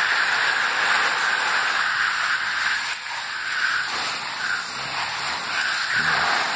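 Water spraying steadily from a hose watering wand onto plastic seedling trays.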